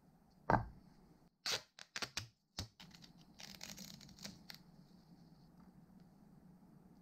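A thump, then silver duct tape pulled off its roll in several quick rips about a second in, followed by a short crackling stretch as the tape is cut from the roll with a knife.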